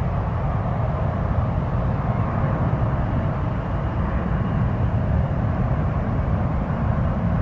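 Jet airliner landing, its engines a steady low rumble with a faint whine above it.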